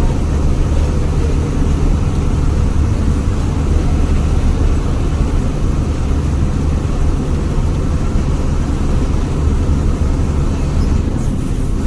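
Diesel engine of a split-windshield Jaya Guna intercity bus running steadily under way, heard from inside the cabin as a loud, deep, unbroken drone. This is the engine's 'ngorok', a snoring growl it keeps up the whole way.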